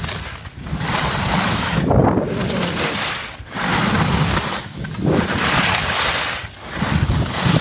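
Wind buffeting the microphone and skis scraping over snow during a downhill run. The sound swells and drops in waves every second or two.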